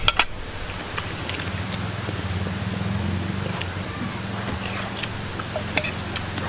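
People chewing and biting cooked chicken feet by hand, with scattered small clicks and smacks of mouth, bone and fingers. A steady low hum runs underneath from about a second in.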